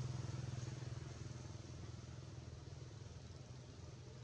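A motor engine running with a low, steady hum that fades from about a second in, as if moving away.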